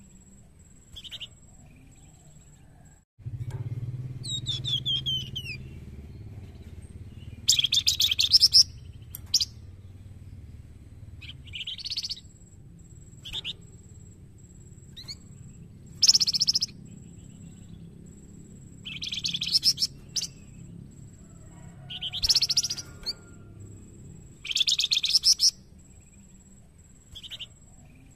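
A flamboyan songbird singing loud, short chattering phrases of about a second each, repeated every two to three seconds, with one run of falling whistled notes a few seconds in.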